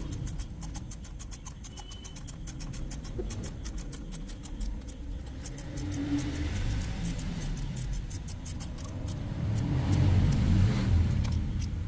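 Low rumble of a road vehicle that swells about ten seconds in, with rapid light clicking over it.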